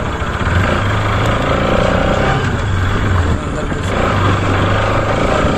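Bajaj Pulsar RS200 motorcycle's single-cylinder engine running while being ridden, a steady engine note with a fluctuating higher layer over it.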